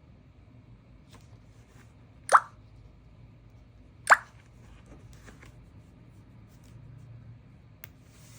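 Two short, sharp pops, a little under two seconds apart, over a faint steady hum.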